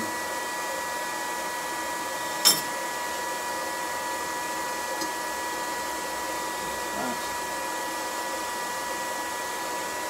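Steady whirring hum of an electric fan-type blower, with one sharp metallic clink about two and a half seconds in as the steel tong halves are handled on the anvil.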